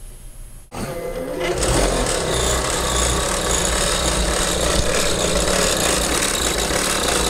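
The tilt drive of a Studio Color 575 moving-head light (its motor and belt mechanism) running with a loud, rough, continuous mechanical noise that starts about a second in and builds for a moment before holding steady. It is the symptom of the tilt fault, which is later traced to the tilt belt's tension.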